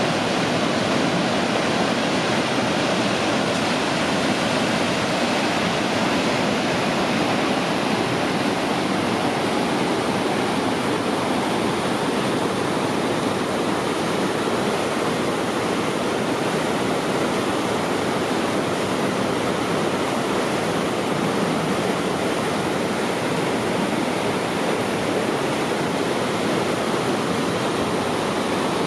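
Mountain river water rushing over rocks in a steady, even roar of rapids, with no breaks.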